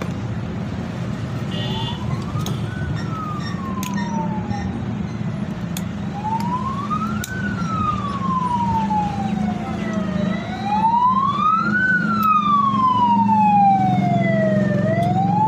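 A siren wailing, its pitch rising quickly and falling slowly about every four to five seconds and growing louder toward the end, over a steady low rumble.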